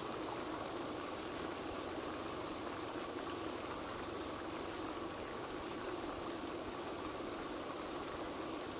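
Steady rushing splash of a pond's spray fountain, with a faint steady hum underneath.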